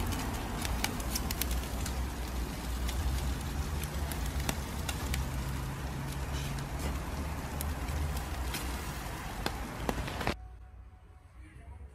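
Meat sizzling on the wire rack of a charcoal grill, the dripping fat crackling and spitting in many sharp pops over a steady hiss, with a low rumble underneath. It cuts off suddenly about ten seconds in.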